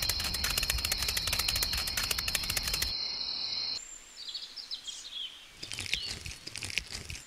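Rapid, dense clicking with a steady high-pitched tone over it, which stops abruptly about three seconds in. Faint bird chirps follow.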